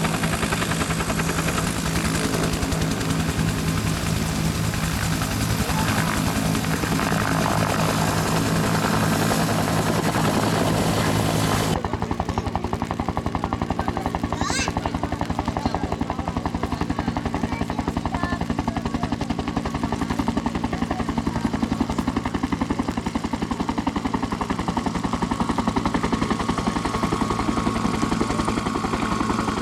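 Bell UH-1 Huey helicopter turbine and two-blade rotor running, with a fast, even rotor beat. About twelve seconds in, the sound changes abruptly to a Huey hovering with a sling load, softer in the treble.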